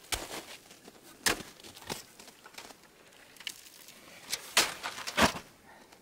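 Footsteps crunching on a frozen snow crust: a handful of short, sharp crunches at uneven intervals, the loudest near the end.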